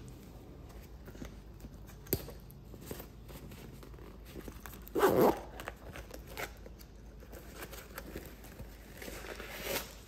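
A new snap-and-zip sneaker and its paper tags and packaging being handled: rustling, a sharp click about two seconds in, and a short, loud rasp about five seconds in.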